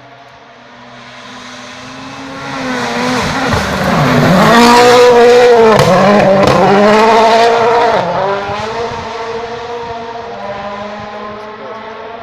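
A 2017 World Rally Car's 1.6-litre turbocharged four-cylinder engine approaching flat out and passing, its revs dipping and climbing again several times as it goes through the bend, with a few sharp cracks at its loudest. It then fades as the car pulls away down the stage.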